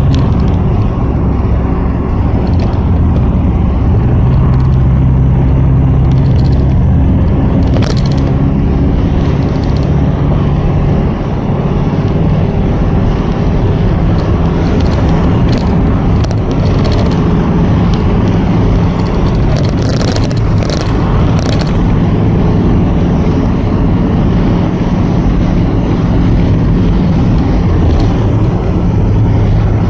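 Inside a moving bus on an expressway: steady engine drone and tyre and road noise, heard through the window glass that the phone is pressed against. The engine note shifts in pitch a few times, and short clicks and rattles come and go, clustering around two-thirds of the way through.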